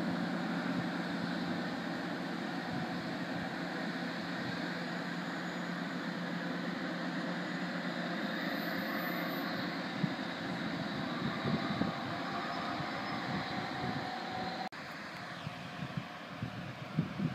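Class 43 HST diesel power cars pulling away, a steady engine drone slowly fading, over the constant rush of the neighbouring power station cooling towers. About 15 s in the sound drops suddenly to wind buffeting the microphone.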